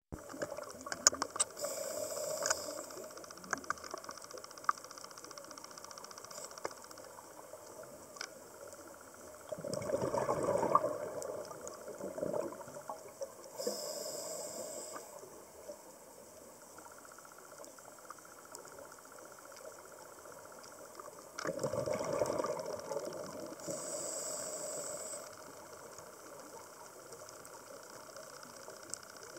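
Scuba diver breathing through a regulator underwater: two loud bubbling bursts of exhaled air and three shorter high hisses of inhaled air through the regulator, over a low hiss with scattered clicks.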